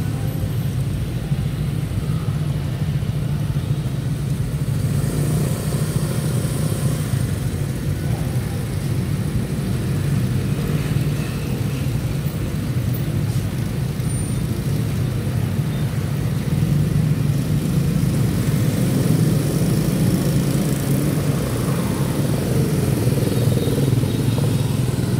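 A steady low rumble with no distinct events, slightly louder in the second half.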